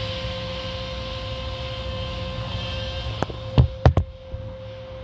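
Automatic car wash machinery running, heard from inside the car: a steady hum with a constant tone. A little past three seconds in, four sharp thumps come in quick succession, the loudest sounds here.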